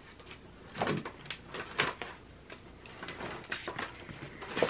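A few light knocks and rustles from things being moved about by hand while searching. They come about a second in and again near two seconds, and are busiest toward the end.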